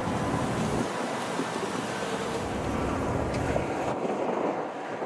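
BNSF double-stack intermodal freight train rolling past behind its GE diesel locomotive, a steady noise of engine and wheels on rail. About four seconds in it gives way to wind on the microphone.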